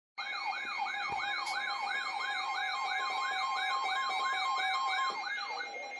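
Emergency alert attention tone: a synthetic siren-like signal of fast, repeated pitch sweeps, about three a second, over steady electronic tones. It cuts off just before the end, marking the start of a flood warning alert.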